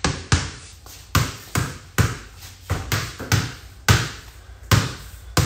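A soccer ball bounced by hand on a concrete floor, about a dozen bounces at an uneven pace of roughly two a second.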